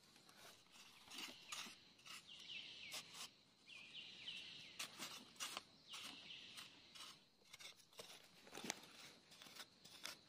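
Faint scraping and crunching of soil being dug by hand, with scattered clicks. A couple of short runs of faint high chirps come about two and four seconds in, over a faint steady high tone.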